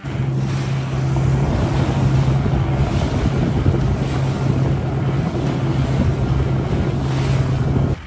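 A motorboat running over open water: a steady engine drone under heavy wind noise on the microphone and the rush of water.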